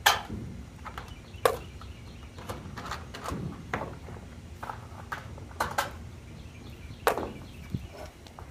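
Metal pool wall panel being handled and pulled away from the old wall, with a few sharp clanks and knocks; the loudest comes right at the start and another about a second and a half in.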